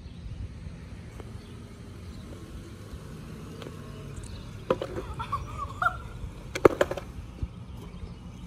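Skateboard clacking on a concrete driveway during a trick attempt: one sharp clack, then a couple of seconds later a louder quick double clack as the board comes down flipped over, wheels up.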